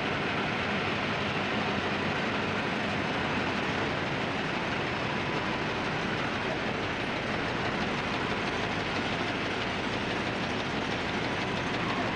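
Cotton spinning-mill machinery running: many textile frames going at once, giving a steady, dense mechanical din with no pauses.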